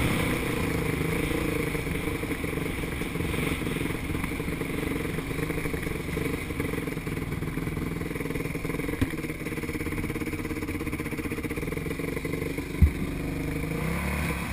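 Kawasaki KX125 two-stroke motocross bike engine running steadily on a dirt trail, heard up close from the riding bike. Two sharp knocks come through, one about nine seconds in and a louder one near the end.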